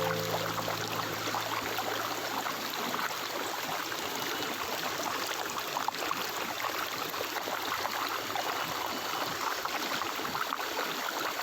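Stream water running and gurgling steadily. A low held musical tone sounds beneath it and fades out about three-quarters of the way through.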